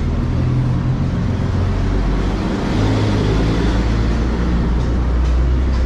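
Low rumble of a motor vehicle engine running close by, growing slightly louder about halfway through.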